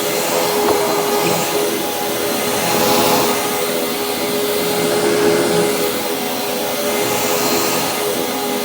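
Hoover WindTunnel Supreme upright vacuum cleaner running steadily while vacuuming, a dense rushing noise with a steady motor whine underneath and gentle swells in loudness as it is pushed and pulled. It has a freshly cleaned filter and a new brushroll.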